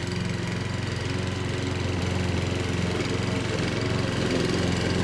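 Webb WER510SP petrol rotary lawn mower's 173cc four-stroke OHV engine running at a steady speed.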